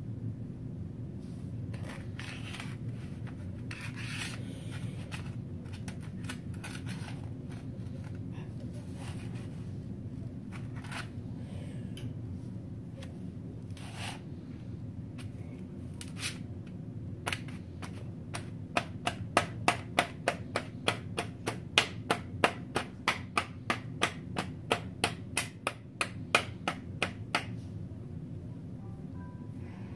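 A table knife working kinetic sand in a metal tray. Scattered scrapes and taps give way, a little past halfway, to a quick run of sharp clicks, about three a second for some ten seconds, as the blade strikes the tray. A steady low hum runs underneath.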